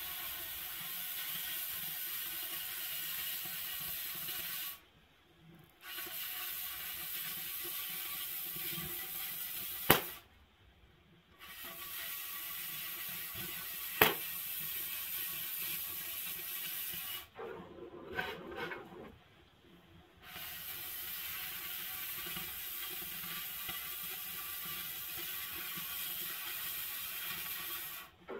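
Oxy-fuel cutting torch hissing steadily as it cuts through steel pipe. The hiss stops three times for a second or a few and starts again, and two sharp cracks stand out, about ten and fourteen seconds in.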